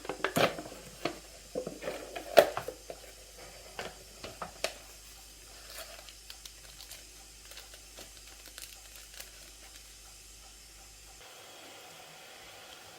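Home cooking sounds: utensils clicking and knocking against a pan over light sizzling, busiest in the first five seconds and thinning to faint ticks, then a steady hiss from about eleven seconds in.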